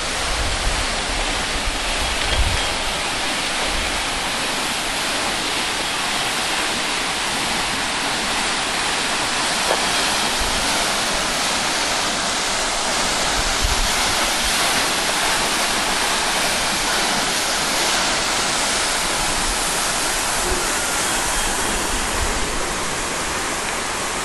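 A 90-foot waterfall falling over a limestone ledge into its plunge pool: a steady rushing hiss of falling water.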